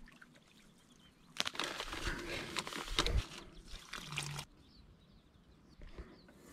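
Water splashing and trickling in a stretch of about two seconds, starting about a second and a half in, with a few sharp wet slaps in it.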